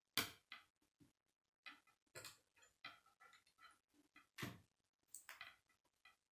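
Plastic K'nex rods and connectors clicking and rattling as they are fitted together by hand: irregular sharp clicks with short silent gaps, the loudest just after the start and another about four and a half seconds in.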